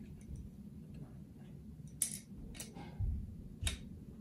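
Sharp metal clicks and dull knocks from an adjustable wrench working on a brass pipe fitting as it is fitted and tightened. The clicks come about two seconds in, again soon after, and once near the end.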